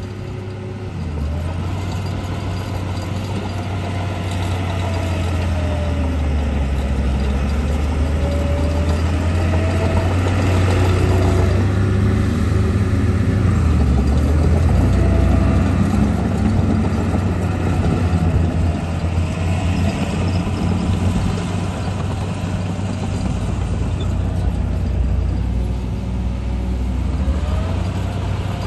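Radio-controlled construction truck working: a steady low engine-like drone with motor whines that rise and fall in pitch every few seconds.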